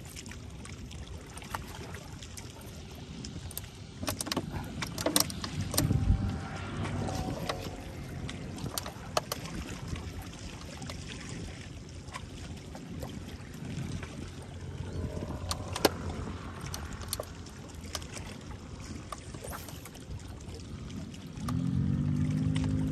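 Low rumble of wind buffeting the microphone by the sea, with scattered clicks and knocks from handling, loudest about six seconds in. Music comes in near the end.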